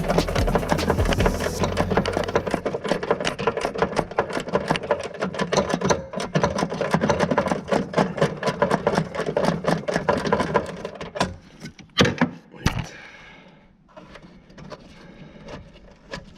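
Socket ratchet on an extension clicking fast and steadily, about five clicks a second, as bolts are undone, stopping after about eleven seconds; then three sharp metallic knocks and quieter tool handling.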